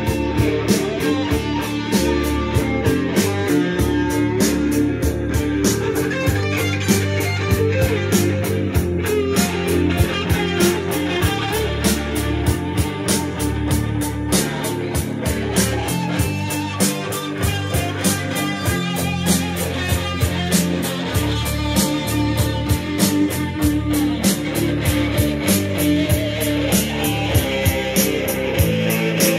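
Rock music with guitar and a steady beat playing through a vintage Pioneer stereo system.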